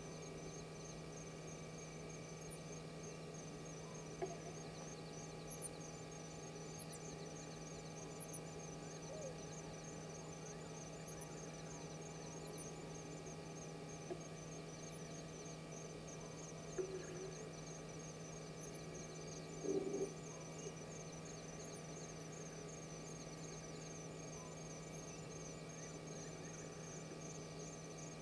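Faint night ambience: a steady electrical hum under insects chirping in a fast, even rhythm, with a few short high chirps. There are brief louder sounds about a third and two-thirds of the way in.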